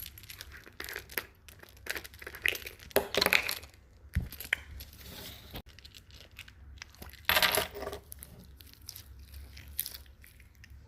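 Plastic packaging of a small slime container being torn and crinkled open, heard as a series of short rustling bursts, the loudest about three seconds in and again about seven and a half seconds in.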